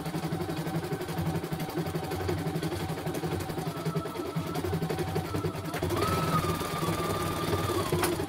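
CNY E900 computerised embroidery machine stitching: the needle runs in a fast, even rattle while a motor whine shifts between pitches as the hoop is driven. The footage is sped up twice, raising the rate and the pitch. A single sharp click near the end.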